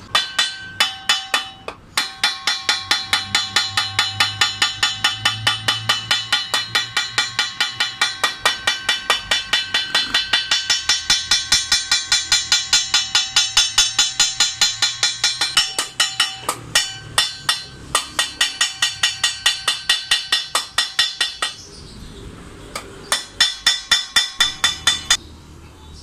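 Small hammer tapping rapidly along a brass sheet laid on a steel plate, forming a brass radiator tank. Each blow rings, at about four blows a second, with short pauses and a stop near the end.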